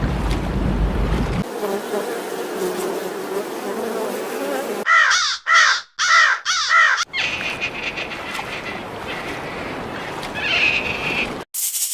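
A sequence of animal sound-effect clips: four short, harsh, crow-like calls in quick succession, followed by a steady insect-like buzzing that cuts off suddenly near the end.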